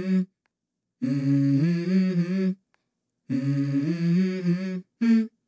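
Background song: a wordless hummed vocal melody in short phrases, each cut off by a moment of complete silence.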